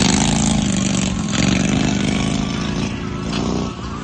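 Racing lawn mower engines running hard, revving down and back up about a second and a half in; the sound drops away near the end as they pass.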